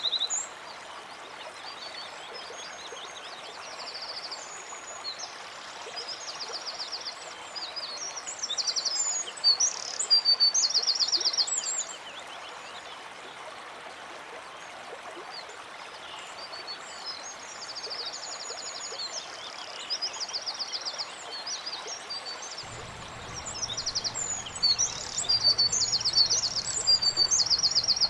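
Songbirds singing in bouts of high, rapid trills and chirps over a steady background hiss, with a pause mid-way. A low steady hum comes in near the end.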